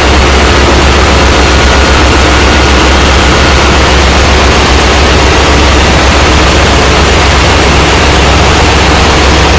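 Loud, steady din of a ship's engine room: diesel engines and machinery running, with a strong low hum and a hissing rush over it that stays unchanged throughout.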